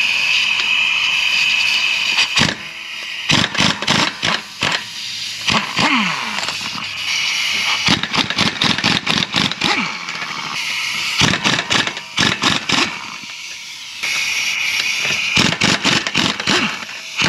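Pneumatic impact wrench taking lug nuts off a car wheel. The air motor runs with a high whine, then hammers in repeated rapid bursts as each nut is broken loose and spun off, winding down in pitch between nuts.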